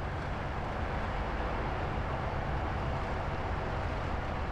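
Diesel engine of a cab-over semi tractor running steadily as the truck drives slowly: a low, even engine hum with a hiss of road noise over it.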